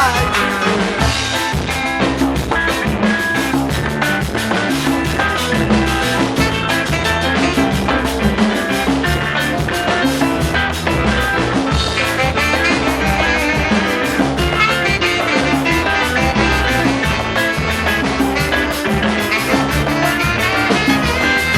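Band playing an instrumental passage of a reggae-ska song, with drum kit and bass keeping a steady beat under other instruments and no singing.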